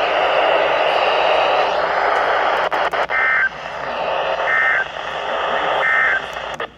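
Radio static hiss, then three short bursts of two-tone digital data about 1.3 seconds apart: the Emergency Alert System end-of-message code that closes a warning broadcast.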